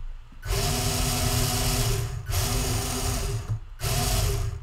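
Small geared DC wheel motors of a robot rover whirring as they are driven from a joystick. They run in three stretches, starting about half a second in, with two brief stops.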